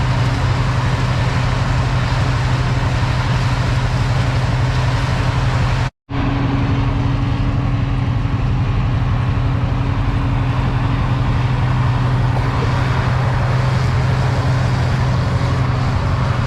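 A farm machine's engine running steadily with a constant low drone, broken by a split-second dropout about six seconds in.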